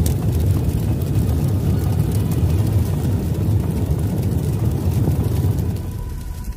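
A loud, steady low rumble that fades near the end.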